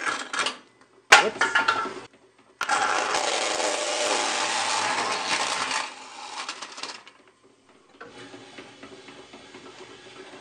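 Slowed-down wooden bandsaw with a coarse 3 TPI steel-cutting blade cutting through an aluminium drink can: a few short bursts as the teeth catch the can, then about three seconds of loud continuous cutting noise that dies away around six seconds in. Near the end the saw runs more quietly.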